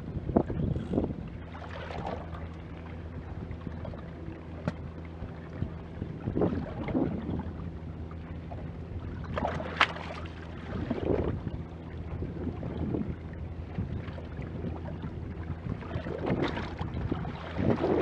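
Small boat's outboard motor running steadily with a low, even hum, while noisy rushes of wind and choppy water against the hull come and go every few seconds.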